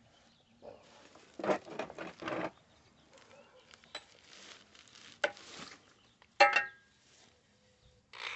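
Separate scraping strokes across the cut edge of a soft steel lawn mower deck, taking off the sharp burrs. There are a few light clicks, and about six and a half seconds in a sharp metal clank rings briefly.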